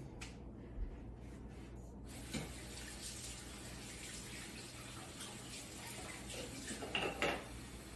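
A kitchen tap turned on about two seconds in and running steadily as hands are rinsed under it, with a brief clatter near the end.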